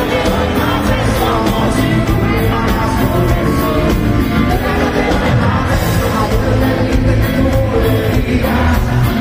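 Live rock band playing through a concert PA: electric guitars, bass, drum kit and congas, with a male lead vocal singing, heard from within the audience.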